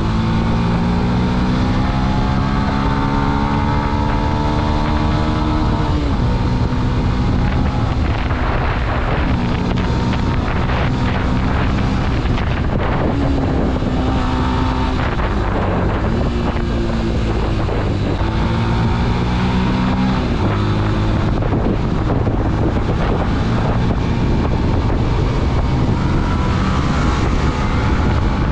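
Motorcycle engine pulling under load, its pitch climbing and then dropping at each of several gear changes, with wind rushing over the microphone.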